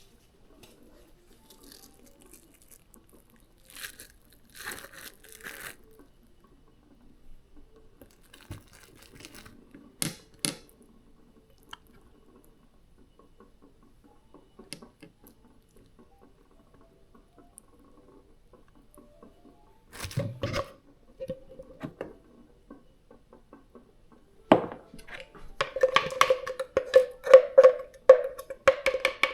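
Faint, scattered rustling and light knocks of hands working in a kitchen. About twenty-five seconds in, background music starts: a repeated note pulsing several times a second.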